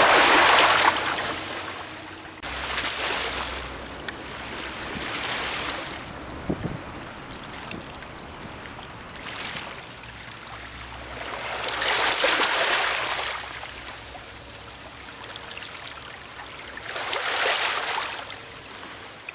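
Small sea waves washing in over shoreline boulders and draining back, a hiss of water that swells and fades every few seconds, the biggest washes near the start, about twelve seconds in and near the end.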